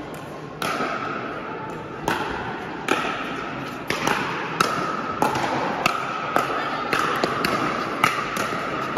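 Pickleball rally: about a dozen hard paddle-on-ball pops and bounces, coming faster in the second half as the players trade quick shots at the net. Each hit echoes in a large indoor hall.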